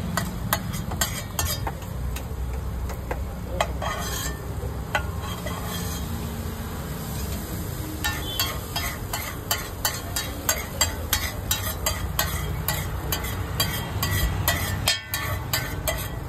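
Metal spatula clicking and scraping against a hot pan as an egg dish is stirred and fried, with sizzling underneath and a steady low rumble. The clicks come quickly and irregularly, thinning out for a few seconds in the middle.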